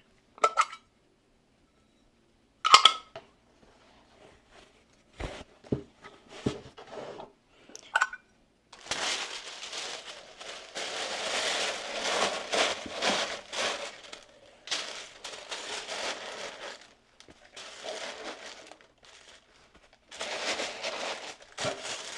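Metal candle tins clinking and being set down on a desk a few times, then a long stretch of tissue paper rustling and crinkling as it is tucked into a cardboard box, from about nine seconds in, with short pauses.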